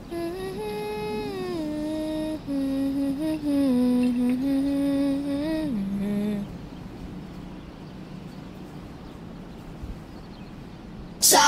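A slow, wordless melody of held notes stepping up and down in pitch, hummed or played on a synthesizer, for about six seconds, then a quieter steady hum. Loud electronic dance music cuts in abruptly near the end.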